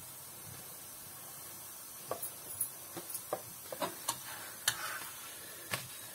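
A paratha cooking on a hot tawa with a faint steady sizzle, joined from about two seconds in by a run of light, irregular clicks and taps from kitchen handling.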